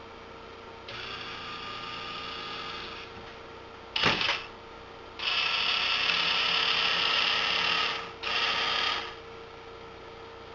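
Small electric gear motors of a homemade azimuth-elevation antenna rotor running in separate bursts as it turns and tilts the antenna: a run of about two seconds, a sharp clack about four seconds in, then a louder run of nearly three seconds and a short one about a second later.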